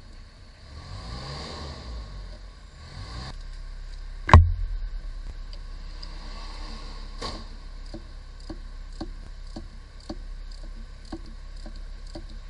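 Hand-tool work on a starter motor under a van. There is a rattling from about one to three seconds in, then one loud metallic knock about four seconds in. After that comes a steady clicking about twice a second, typical of a ratchet wrench turning a starter mounting bolt.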